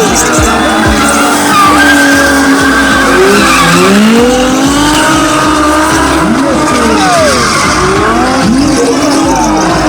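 Two drift cars, a Nissan 350Z and a BMW E36, sliding in tandem: both engines revving up and down, with tyres screeching.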